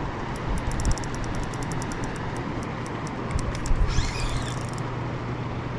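Spinning reel ticking in quick light clicks as a hooked bass is fought, over a steady rushing background of moving water and wind with a low steady hum. The clicks thin out after about four seconds, near a brief hissy surge.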